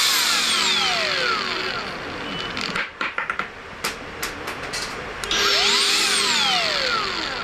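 Cordless 4-inch angle grinder, no disc fitted, its motor whine falling away as it coasts down after the trigger is let go. A few clicks follow, then about five seconds in a short pull of the trigger sends the whine rising quickly and falling again as it spins down.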